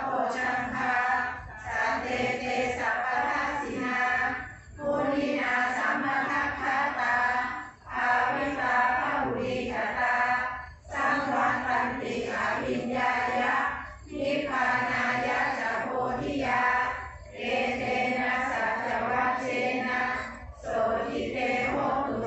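A group of people chanting Buddhist prayers together in unison, in phrases of about three seconds with short pauses for breath between them.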